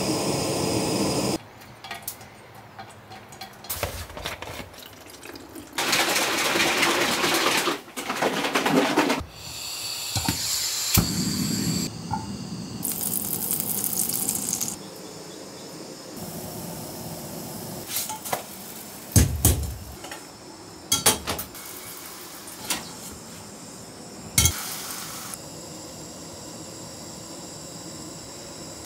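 Pancakes cooking on a small canister gas stove: stretches of burner hiss and batter sizzling in a frying pan, with scattered clinks and knocks of pan and utensils, several sharp knocks coming in the second half.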